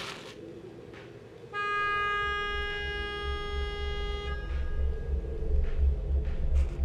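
A car horn sounds once, held steady for about three seconds, over the low rumble of a vehicle engine that starts partway through and grows louder. A short click comes right at the start.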